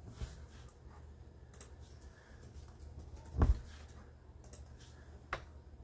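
Computer keyboard typing and clicking, faint and scattered, with a sharper click about three and a half seconds in and another near the end.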